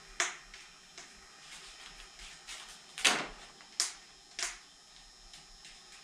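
Large vinyl decal sheet crinkling and snapping as it is handled and held against a car fender: four sharp crackles, the loudest about three seconds in.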